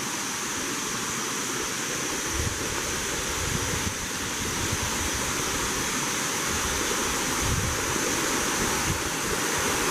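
Bua Tong Sticky Waterfall rushing steadily: water cascading over rock, a constant even hiss.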